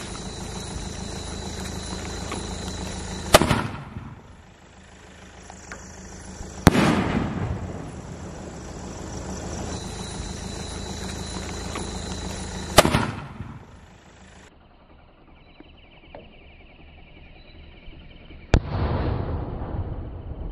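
Sony Fireworks "Poland" sky-shot shells firing: four sharp bangs several seconds apart, each trailing off over a second or so, over a steady hiss.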